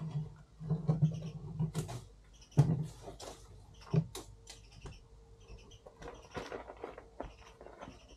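Irregular knocks and clatter, the loudest about two and a half seconds in, with a few faint high chirps between them.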